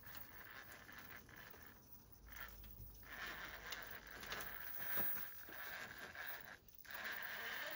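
RC rock crawler's brushless electric motor and geared drivetrain whining as it climbs, the whine cutting out and coming back several times with the throttle, with a few clicks and scrapes from the tyres and chassis on rock.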